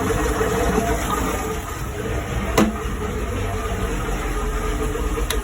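Mercruiser 7.4 L V8 inboard marine engine idling steadily as it draws antifreeze through its raw-water intake for winterizing, cut off near the end; a single sharp click about halfway through.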